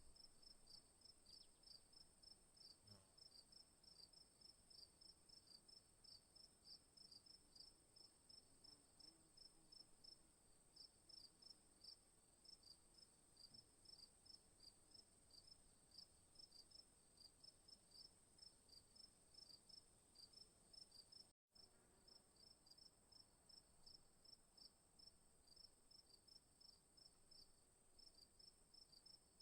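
Faint night crickets chirping in quick, even pulses over a steady high-pitched insect drone. The sound cuts out for an instant about two-thirds of the way through.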